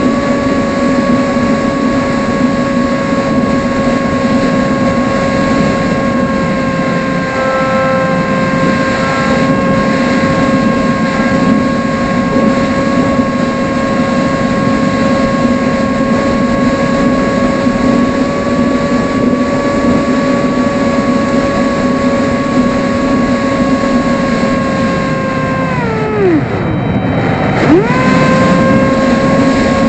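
Electric motor and propeller of an AtomRC Dolphin RC plane whining steadily in flight, recorded by the onboard camera with a rushing air noise underneath. About 26 seconds in, the pitch falls away sharply as the motor slows, then climbs back to its cruising pitch a second and a half later.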